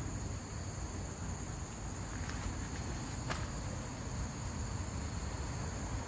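Insects droning steadily in several high-pitched tones over a low rumble, with two faint clicks about two and three seconds in.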